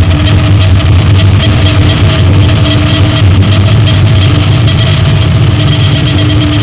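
Loud droning music: a deep, unbroken rumble with a steady held tone above it that drops in and out every second or two.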